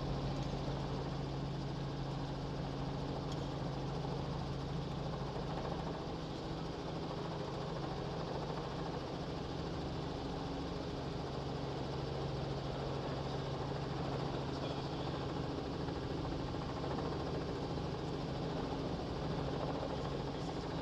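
Robinson R44 helicopter's piston engine and rotors running steadily as it hover-taxis at walking pace, heard from inside the cockpit as an even, unchanging low drone and hum.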